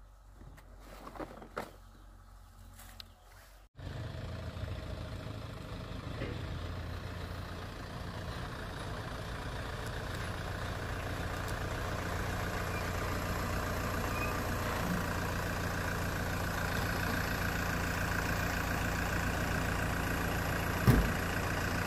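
A few light knocks, then from about four seconds in an engine running steadily at a constant speed, slowly growing louder, with one sharp knock near the end.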